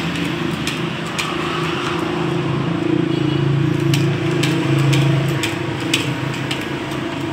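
An engine running with a steady hum that swells around the middle, with scattered sharp metallic clicks and taps.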